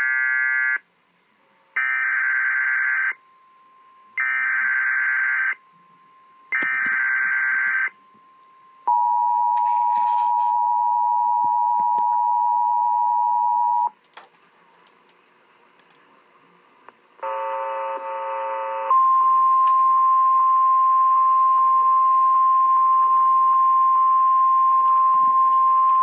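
Emergency Alert System (EAS) alert tones played from a laptop: four short warbling digital bursts of SAME header data, then the two-tone attention signal for about five seconds. After a short pause and a brief buzzy burst, a steady single high tone sounds, in the manner of the National Weather Service alert tone, leading into a flash flood warning.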